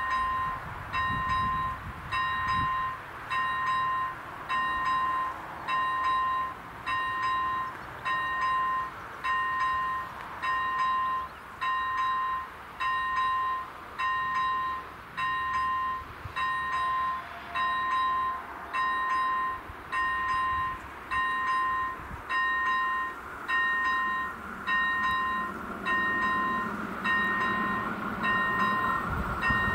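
Czech level crossing's electronic warning bell dinging about once a second, each ding a steady two-pitch tone. Over the last few seconds the rumble of an approaching train rises underneath.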